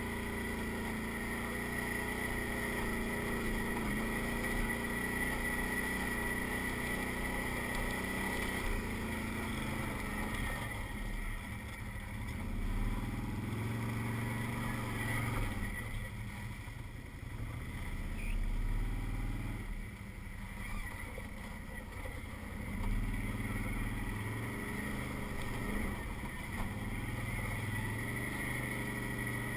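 Can-Am ATV engine running while ridden over rock, its note rising and falling with the throttle and easing off twice around the middle.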